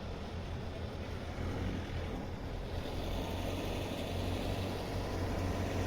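Steady low vehicle rumble, growing slightly louder.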